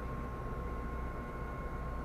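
Solaris Urbino 18 articulated city bus running, heard from inside the cabin: a steady low rumble with a thin, steady whine above it.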